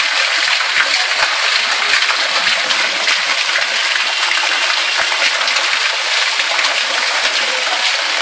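Heavy rain and harvested rooftop rainwater pouring down into a well: a steady, even rush of splashing water.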